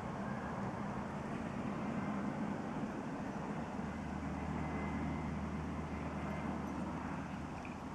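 Steady low rumble of a distant engine, with a deeper hum from about four to seven seconds in.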